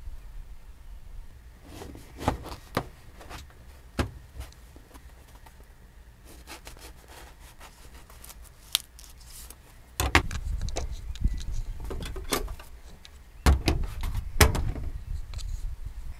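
A knife cutting a crusty bread loaf on a wooden cutting board, the crust crackling with scattered sharp clicks, and a few heavier knocks and thumps of the knife and board, about two-thirds of the way through and again near the end.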